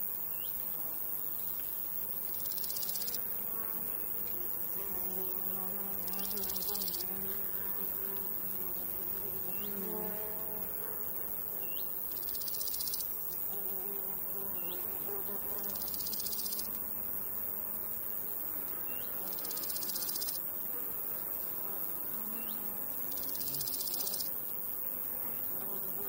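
Summer meadow insects: flies and bees buzzing past, with a chirring insect calling in high-pitched bursts of about a second, repeated every three to four seconds.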